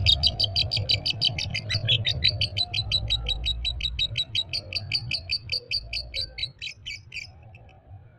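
A Fischer's lovebird's long, unbroken rapid chattering trill (ngekek), about ten harsh notes a second. It is the continuous kind of ngekek that keepers call 'konslet'. It fades away and stops about seven seconds in.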